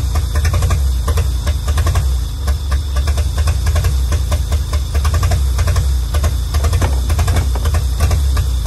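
Old truck engine of a 1935 International C-30 running steadily with a fast, even pulse, after being revived from decades of sitting; it runs really good.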